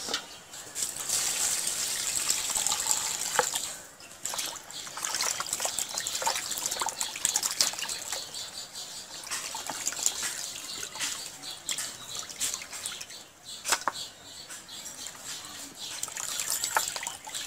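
Hands washing raw mutton pieces in a plastic bucket of water: continuous splashing and sloshing, with a few sharper splashes along the way.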